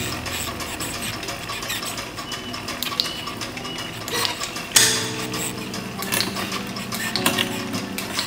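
Road bike drivetrain worked by hand on a repair stand: the chain runs over the rear cassette and derailleur pulleys with a run of light ticks and clicks, and one sharper click just under five seconds in. Background music plays under it.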